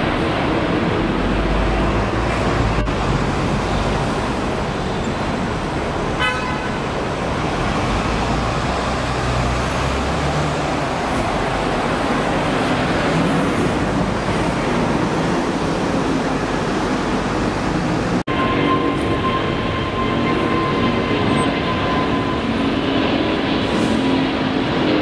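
Jet airliner engines during climb-out after takeoff, first a Boeing 747-8 freighter, then an Airbus A350: a loud, steady rumble that breaks off for an instant about three-quarters of the way through, after which a steady engine whine rises above it.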